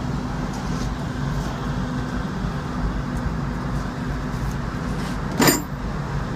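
Steady low mechanical hum, with one sharp knock about five and a half seconds in.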